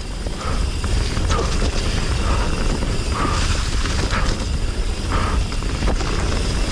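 Commencal Meta HT hardtail mountain bike coasting downhill: the rear hub's freewheel ratchet buzzing, with chain and frame rattling over the trail and a steady low wind rumble on the microphone.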